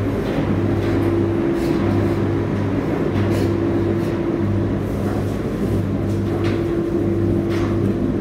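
Ipso WE165 commercial washer-extractor tumbling a load of bed linen in its wash cycle: a steady low hum that pulses about once a second as the drum turns, with a few brief swishes as the wet laundry drops inside the drum.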